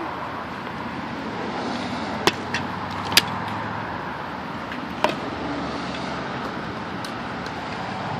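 Steady outdoor background noise with a low hum, broken by a few sharp clicks between about two and five seconds in.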